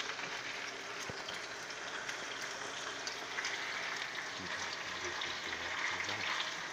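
Red snapper pieces frying in oil in a skillet: a steady sizzle with small pops.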